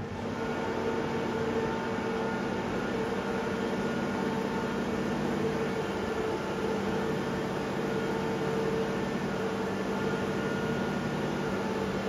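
A steady mechanical hum holding a few constant tones.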